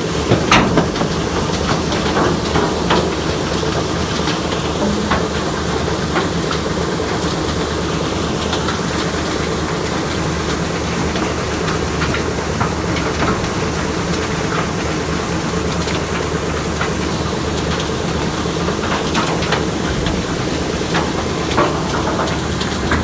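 Trommel scrubber and washing-plant machinery running: a steady mechanical drone with a hiss of washing water and scattered short knocks.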